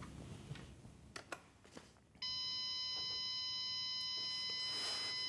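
A few faint clicks, then a steady electronic beep about two seconds in that holds at one pitch and one level.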